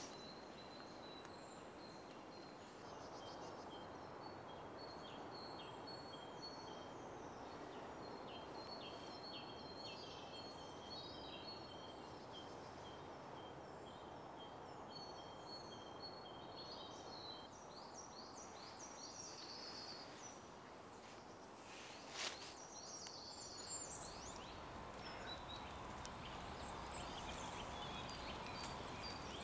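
Quiet woodland ambience: wild birds chirping in quick high phrases over a faint steady hiss, with one sharp click about three-quarters of the way through.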